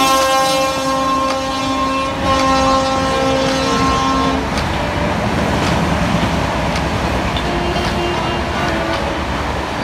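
A train horn sounds in one long, steady blast that cuts off about four and a half seconds in, followed by the loud, even noise of the train running, with scattered clicks.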